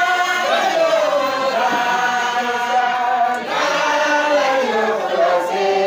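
A group of voices chanting a religious song together in long, drawn-out notes, with a short break for breath about three and a half seconds in.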